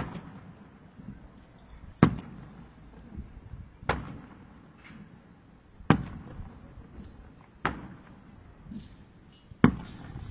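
Aerial firework shells bursting at a distance: six sharp bangs about two seconds apart, each followed by a low rumbling echo.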